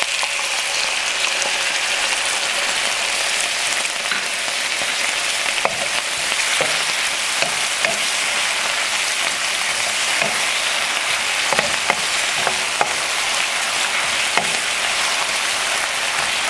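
Sliced carrots and red pepper sizzling in hot sesame oil in a wok with dark mushroom soy sauce just added, stirred with a wooden spatula that knocks against the pan now and then.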